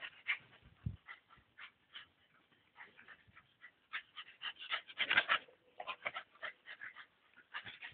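Small dogs barking in quick, short yaps, over and over, with the loudest flurry about five seconds in.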